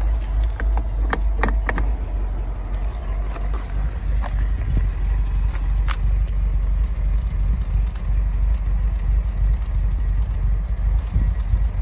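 1973 Citroën DSuper 5 engine idling with a steady low rumble while its hydropneumatic suspension is raised to the high position. A few sharp clicks come in the first two seconds as the height-control lever is moved.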